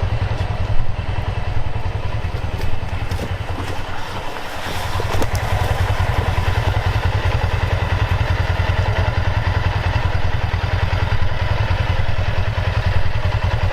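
Side-by-side utility vehicle's engine (a Ranger) running steadily with an even, fast low pulse. There are a few knocks and clatters in the first three seconds, and the engine note eases off briefly about four seconds in, then picks up again.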